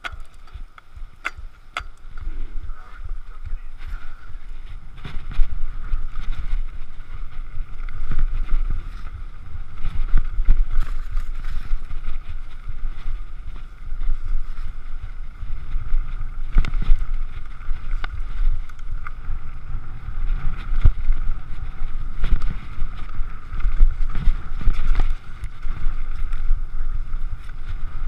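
Downhill mountain bike riding down a dirt-and-gravel trail: tyres rumbling over the rough surface, wind buffeting the microphone, and frequent rattles and knocks from the bike. It starts quieter with a few clicks, and the rumble builds from about five seconds in as the bike picks up speed.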